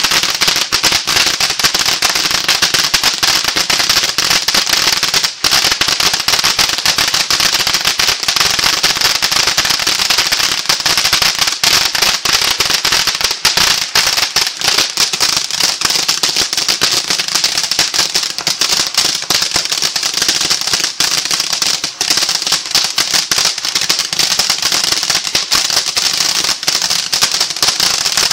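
Consumer ground fountain firework burning: a continuous hiss of spraying sparks, thick with dense crackling pops.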